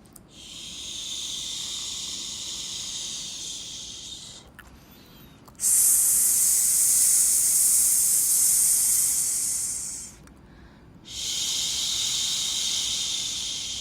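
Long 'shhh' shushing hisses for soothing a baby, in three stretches of a few seconds each with short pauses between; the middle one is the loudest.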